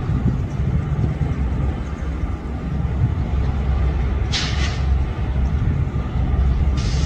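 Freight train hauled by twin WCAG-1 electric locomotives rumbling steadily across a steel girder railway bridge. A short hiss comes about four seconds in, and another begins near the end.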